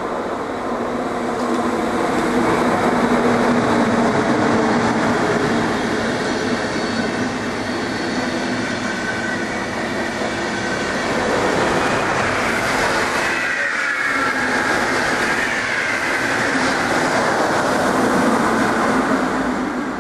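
A German class 110-family electric locomotive and its Intercity coaches passing at speed: a steady loud rush and clatter of wheels on rail with a low hum. A little past the middle a high squeal falls in pitch.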